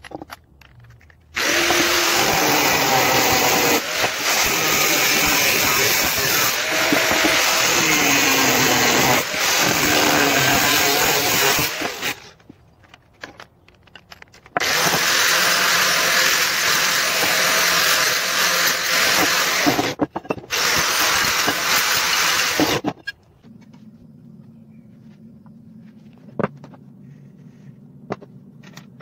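Corded Craftsman power tool cutting through steel angle iron in two long passes, the second briefly stopping and restarting. The motor's pitch wavers as it cuts. A quiet steady low hum follows near the end.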